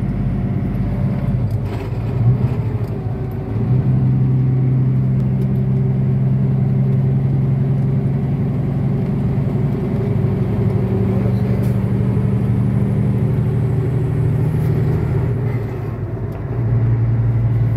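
International truck's diesel engine and road noise heard from inside the cab at highway speed: a steady low drone that dips briefly and picks up again at a different pitch about three and a half seconds in and once more near the end.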